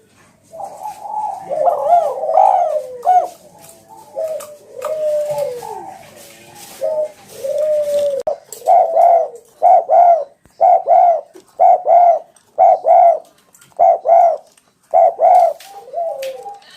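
Spotted doves (tekukur) cooing: overlapping, gliding coos at first, then a steady run of short repeated coos, about two a second, through the second half.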